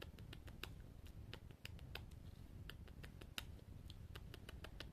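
Soft ASMR mouth sounds close to the microphone: quick, irregular wet clicks, several a second, in the 'coconut rain' style.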